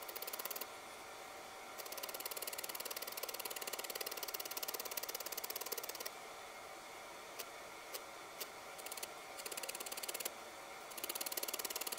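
Felting needle stabbing rapidly and repeatedly through wool yarn into a dense felted wool ball, a quick scratchy ticking in spells of a few seconds with short pauses and a few single clicks between; the yarn outline is being felted in place.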